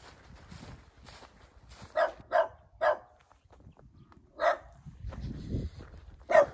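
Dog barking: footsteps on dry ground first, then a run of short barks about two seconds in, another a little later and two more near the end. A low rumble comes in during the last part.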